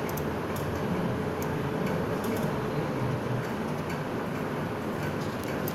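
Steady low background hum and rumble, with a few faint ticks scattered through it.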